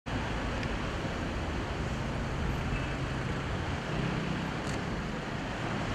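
Steady outdoor traffic and engine noise with a low, constant hum, as from idling vehicles.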